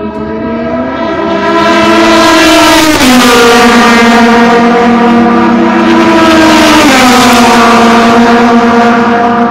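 Turismo Nacional Clase 2 race cars running at speed past the fence on the straight, loud. The engine note swells in the first couple of seconds, then drops in pitch about three seconds in and again near seven seconds as the cars go by.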